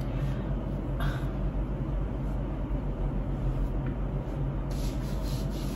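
Steady low hum of room background noise, with faint soft brushing of hands rubbing sunscreen into the skin of the face and neck about a second in and again near the end.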